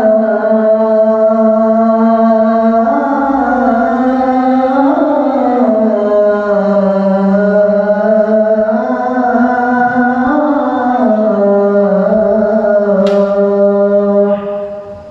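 A man chanting the Islamic call to prayer (adhan) into a microphone. He sings one long phrase of held notes that slide and step up and down in pitch, and it fades out just before the end.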